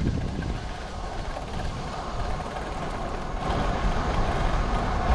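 Wind rushing over the action-camera microphone with tyre rumble on asphalt during a downhill coast, growing louder about three and a half seconds in as the speed builds.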